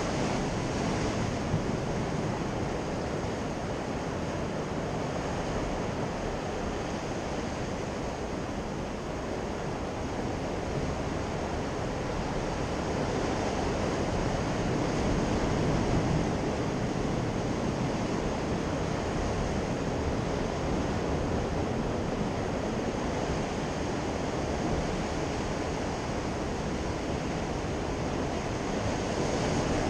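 Sea surf washing steadily against coastal rocks, swelling and easing with the waves, with wind on the microphone.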